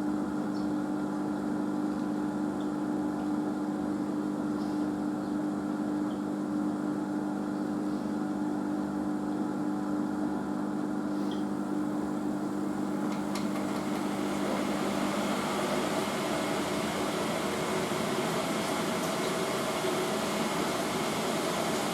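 Asko washing machine ramping up into its final spin: a steady motor hum, joined about halfway through by a growing rush and whir as the drum speeds up toward 800 RPM.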